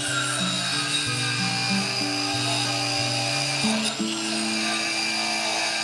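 Background music with a bass line stepping from note to note, over the whir of an angle grinder's wire wheel brushing a forged steel leaf clean.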